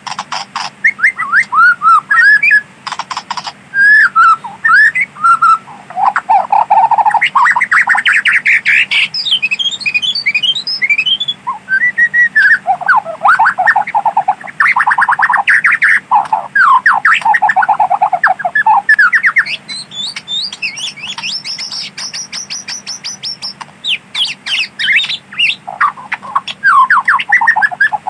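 White-rumped shama singing a loud, varied song of rapid trills and quick runs of rising and falling whistled notes, with only short breaks between phrases.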